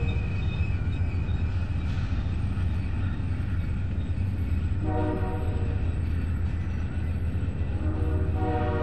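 Passenger cars rolling past at close range with a steady low rumble. The train's horn sounds from the head end: a short blast about five seconds in, and another starting near the end.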